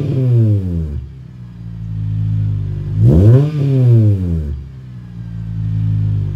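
Acura sedan's engine through a Skunk2 exhaust with its silencers removed. The revs drop back to idle from a throttle blip, then one quick blip about three seconds in rises and falls back to a steady idle.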